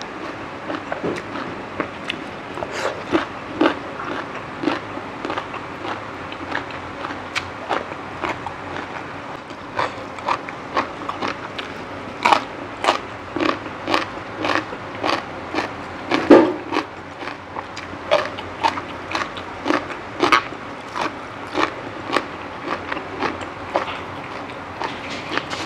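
Biting and chewing crisp raw vegetables: a steady run of sharp crunches, about one or two a second, with one louder crunch about two-thirds of the way through.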